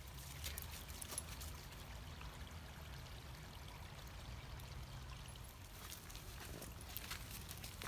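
Creek water trickling over stones, with small irregular splashes that bunch up about half a second in and again near the end.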